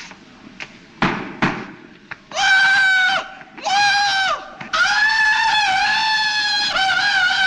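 A man's high falsetto Tarzan yell, yodelling in long held notes. It comes in three stretches: two short held notes, then a long warbling one that breaks back and forth in pitch. Two short sharp noises come just before it.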